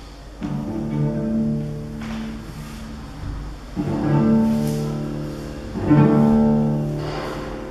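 Cello played with the bow: three long low notes, each starting firmly and slowly fading.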